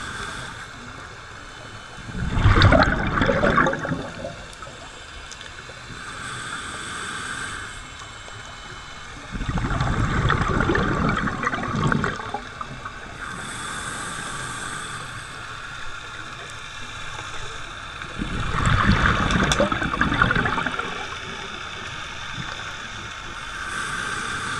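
Scuba regulator breathing underwater: three loud bursts of exhaled bubbles about eight seconds apart, each preceded by the softer hiss of an inhalation through the regulator.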